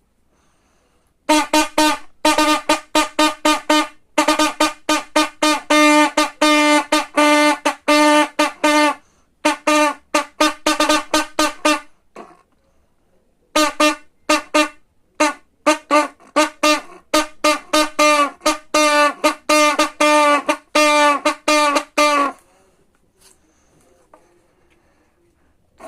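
A brass-like horn playing quick, short notes over and over on one pitch, in runs broken by brief pauses. The notes start about a second in and stop a few seconds before the end.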